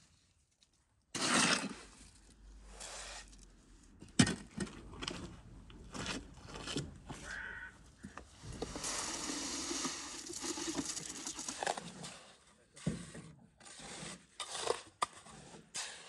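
Masonry trowel scraping and spreading wet cement mortar over block walls, with sharp knocks from tools and a mortar bucket being handled. The longest stretch of scraping runs for a few seconds in the middle.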